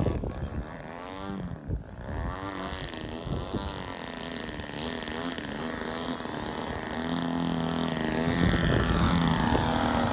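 Engine of an ARS 300 radio-controlled aerobatic plane revving up and down in repeated swells of pitch as it is flown through manoeuvres, then running steadier and louder over the last few seconds as the plane flies close.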